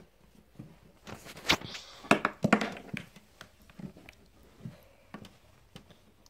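Scattered soft taps, clicks and rustles of handling, coming at irregular moments with quiet spells between.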